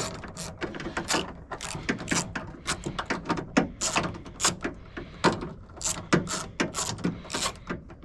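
Ratchet with a 5/16 socket on a long extension clicking in short, irregular strokes as it backs out a door bolt.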